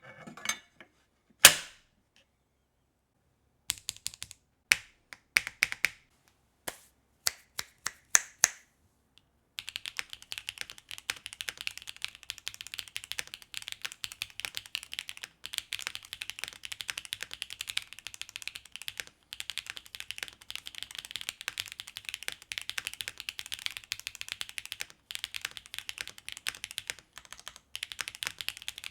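Mechanical keyboard with HMX T-Rex factory-lubed linear switches on a carbon plate: a few separate key presses first, then fast continuous typing from about ten seconds in. The keystrokes are clicks with no tactile or clicky switch sound.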